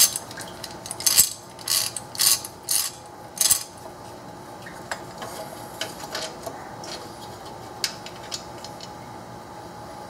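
Hand ratchet clicking in about six short strokes, roughly half a second apart, as a freshly loosened bolt is backed out. Then only a few faint metal clicks.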